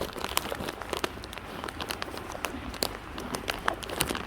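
Peppermint candy's plastic wrapper crinkling as it is handled and unwrapped: a quick, irregular run of sharp crackles.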